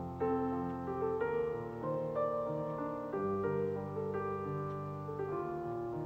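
Piano music, held notes and chords giving way to new ones every second or so.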